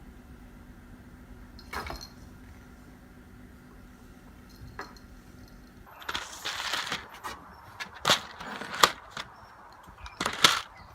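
Scuffling and clattering: a single knock about two seconds in, then from about six seconds a run of rustling bursts and sharp knocks, the loudest near the end.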